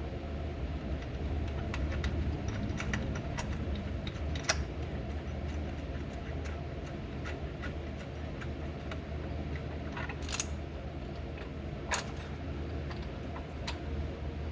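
Scattered metal clinks and taps of bolts, nuts and hand tools being handled while the differential mount bolts are put through and the nuts started, over a steady low hum. The sharpest clink, with a short ring, comes about ten seconds in, and another about two seconds later.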